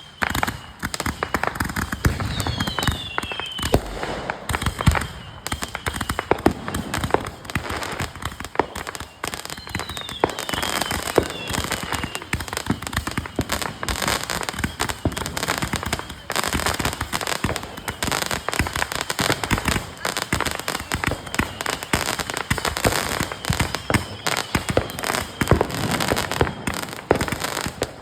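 Fireworks going off: dense, rapid crackling and popping without a break, with a few high falling whistle-like tones near the start and about ten seconds in.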